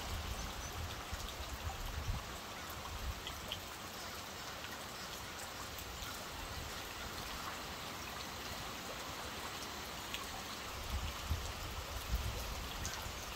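Steady rain falling on a pond and a wet wooden dock: an even hiss with scattered small drip ticks. A low rumble comes in for the first second or so and again near the end.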